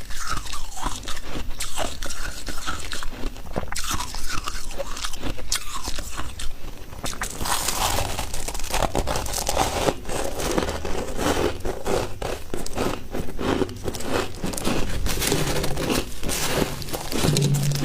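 A person biting and chewing freezer frost: a run of crisp crunches, one after another, growing busier about halfway through.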